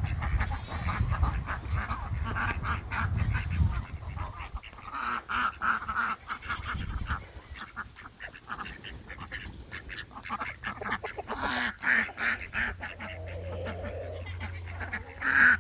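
A flock of domestic ducks and geese calling, with many short overlapping calls.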